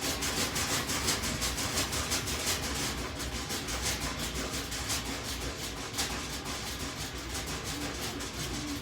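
Hand-held hair dryer blowing, a steady rush of air that pulses unevenly.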